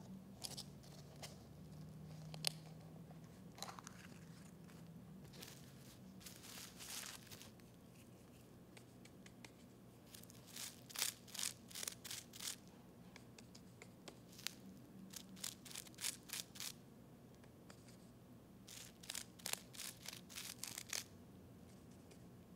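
Faint crinkly tapping of a small paintbrush dabbing paint onto bubble wrap, coming in several short runs of quick taps.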